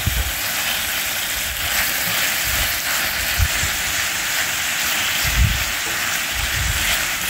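Thin-sliced fondue beef sizzling in a frying pan on a portable camp stove: a steady hiss, with a few low thuds.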